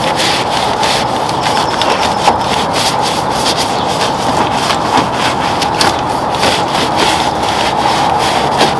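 Long-handled wheel brush with stiff bristles scrubbing the soapy, foam-covered underside of a truck hood, in quick repeated strokes a few times a second.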